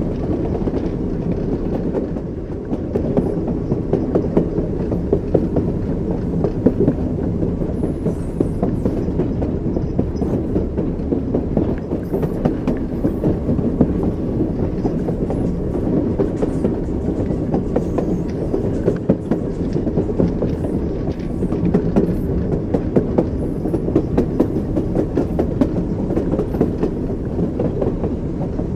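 Train wheels clattering over the rails, with knocks from the wheels over a steady low rumble of the moving train.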